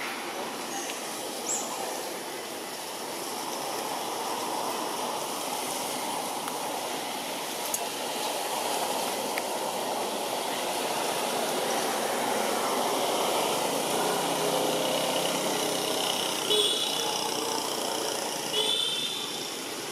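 Steady rushing background noise that swells through the middle, with two short high-pitched squeaks from a baby macaque near the end.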